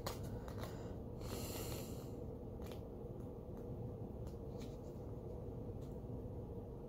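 Faint rustling and light ticks of paper pages being leafed through in a small paperback tarot guidebook, over a quiet room with a steady low hum.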